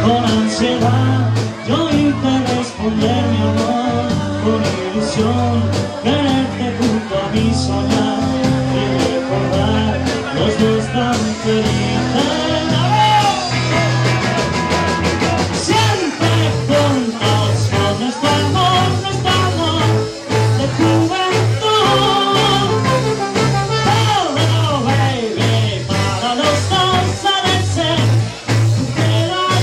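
Live band playing a 1960s-style rock song on electric guitar, bass guitar and drums, with a trombone and a lead singer.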